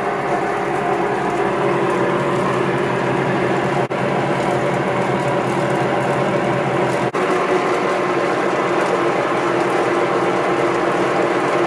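1963 Adcock & Shipley 1AG milling machine running, a steady rumbling from the output-shaft drive at the back of the head with a clicking mixed in. The noise comes from a failed rear bearing on the output shaft, starved of grease.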